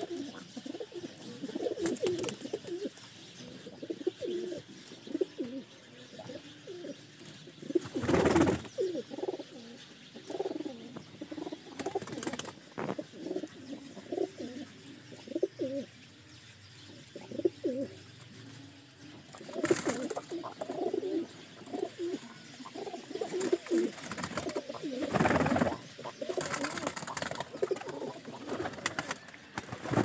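A loft of domestic pigeons cooing, many birds calling over one another without a break, with a few sudden louder bursts about 8, 12, 20 and 25 seconds in.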